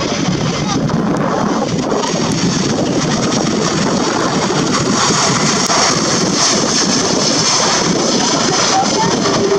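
Jet engine noise from an Airbus A330-200F freighter touching down on a wet runway, mixed with wind buffeting the microphone. The noise grows brighter and hissier about five seconds in as the aircraft rolls out on the runway.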